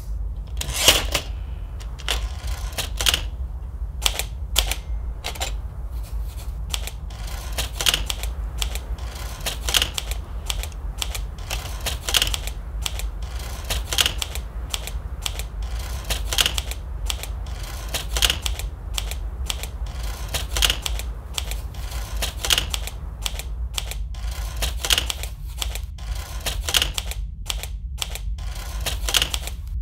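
Olivetti manual typewriter being typed on: irregular sharp key strikes, a few a second, over a steady low hum.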